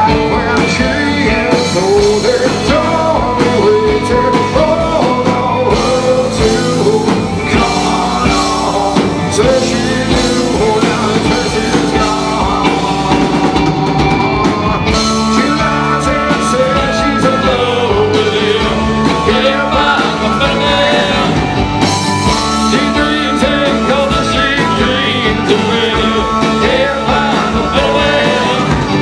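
Live rock band playing: electric guitars, bass and drums, with a singer's voice over them and no clear words.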